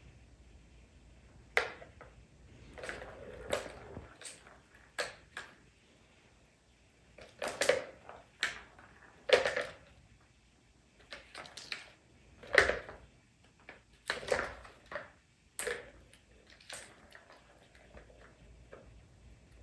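Plastic balls clacking and rolling around the tracks of a plastic cat ball-track tower as kittens bat at them, in irregular bursts of clicks and knocks.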